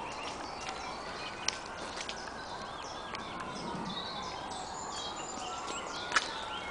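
Woodland songbirds singing, several short phrases overlapping, over a steady outdoor hiss. Two sharp snaps stand out, about a second and a half in and near the end.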